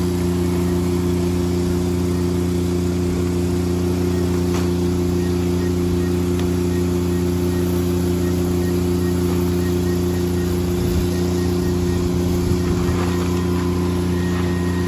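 Steady drone of a small engine running at a constant speed, with an even low hum that does not change.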